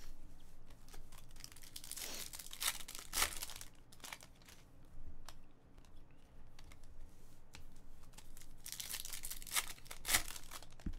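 Trading cards being handled, then a card pack's wrapper crinkling and tearing open in spells, the loudest tearing near the end.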